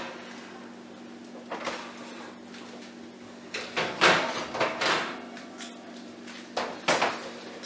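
Metal baking trays being pulled from an oven and set down on a gas stove's grates: scrapes and clatters of sheet pans against oven rack and grate, loudest about four seconds in, with another clatter near the end. A steady low hum runs underneath.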